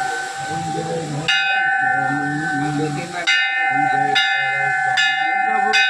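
Temple bell being rung for aarti, struck five times about a second apart after an opening pause. Each clang rings on into the next.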